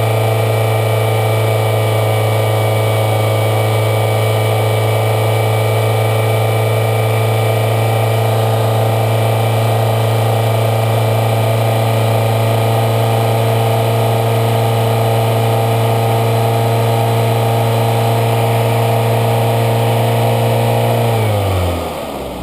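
A 2003 Toyota Corolla's 1.8-litre four-cylinder engine running steadily under a Seafoam treatment through the throttle body, then its speed falling off near the end.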